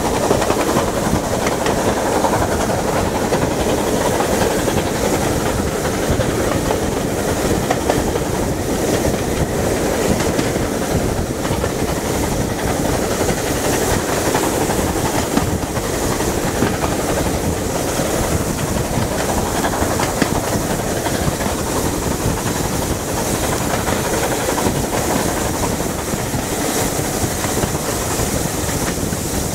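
Steam-hauled passenger train running, heard from an open carriage window behind two BR Standard Class 9F locomotives: a steady mix of wheel and track noise, the engines working ahead, and wind noise, with no break or change.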